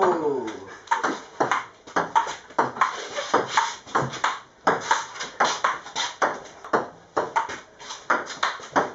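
Table tennis ball in play, struck by bats and bouncing on the table: a steady run of sharp clicks, about two to three a second.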